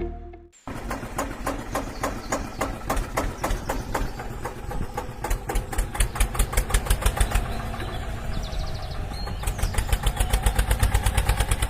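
An engine running with a rapid, even chugging of separate firing pulses. The pulses start just after the beginning and quicken in the second half.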